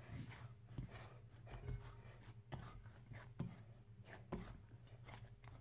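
Faint, soft thuds of hands kneading msemen dough of semolina and flour against a ceramic plate, about one push a second, over a low steady hum.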